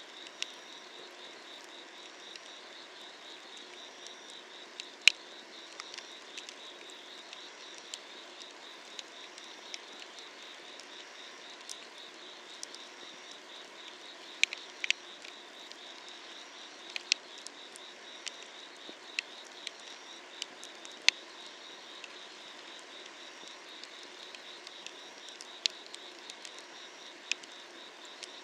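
Firewood burning under a cast-iron cauldron, crackling with sharp, irregular pops, the loudest about five seconds in. Behind it, night insects such as crickets chirp in a steady, rhythmic pulsing trill.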